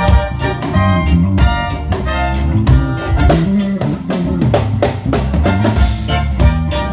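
Band playing Ghanaian local gospel worship music: piano or keyboard over a drum kit and bass, with a steady driving beat.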